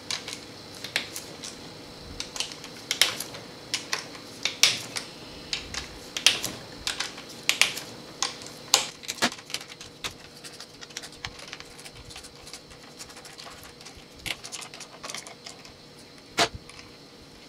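Irregular metallic clicks and clinks of a socket wrench loosening the 7/16 valve-body bolts on a Chrysler 727 automatic transmission. The clicks are thick at first and thin out later, with one sharp clink near the end.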